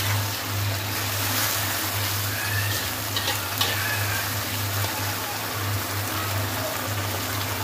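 Chilli potatoes in sauce sizzling in a kadhai while a metal spatula stirs and tosses them. The spatula scrapes and clicks against the pan a couple of times about halfway through.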